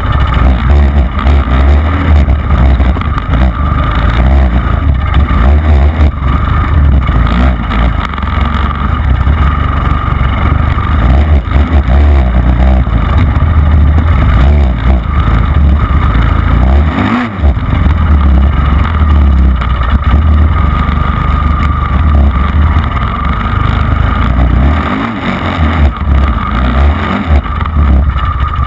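Dirt bike engine running hard, revving up and down as it is ridden fast over a sandy off-road track, with heavy wind rumble on the microphone. The throttle drops off briefly a little over halfway through.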